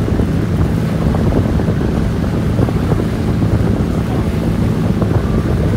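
Boat engine running steadily with a low hum, under wind buffeting the microphone and the rush of water.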